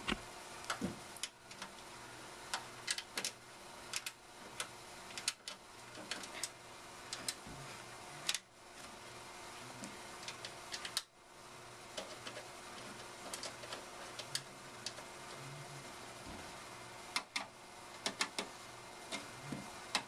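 Scattered light clicks and ticks of screws and a screwdriver against a desktop computer's metal case as the side-panel screws are turned back in, coming irregularly with short clusters of several clicks.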